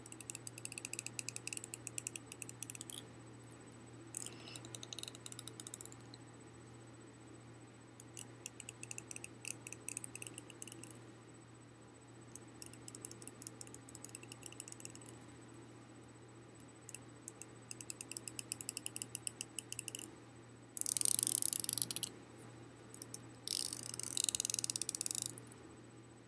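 A finger run along the teeth of a plastic comb, giving rapid ratchet-like clicking in about seven strokes of a couple of seconds each; the last two strokes are faster and louder, the clicks blurring together.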